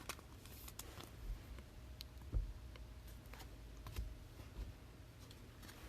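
Trading cards being handled on a table: scattered soft clicks and light taps, with one slightly heavier knock about halfway through.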